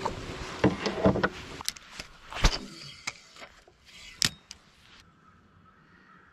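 A run of knocks and clicks from handling on a bass boat's deck, the loudest a heavy thump about two and a half seconds in, with a sharp click near four seconds. It goes much quieter after about five seconds.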